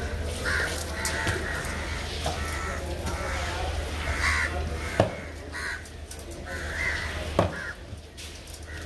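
Crows cawing again and again, with two sharp knocks of a knife striking a wooden chopping block, about five and seven seconds in.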